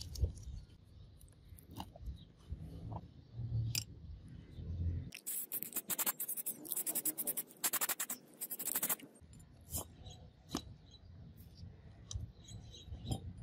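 Aerosol spray-paint can hissing in several short bursts, about four seconds in all, painting over a paper template on a steel knife blank. Before and after come small rustles, scratches and taps as the template is handled on the steel.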